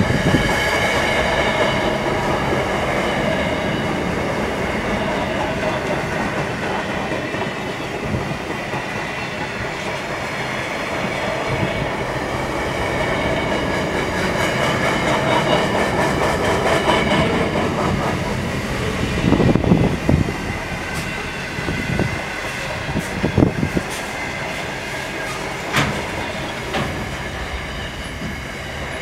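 Double-stacked container wagons of a long freight train rolling past, wheels clattering over the rails with a high wheel squeal that comes and goes. A few louder knocks come about two-thirds of the way through.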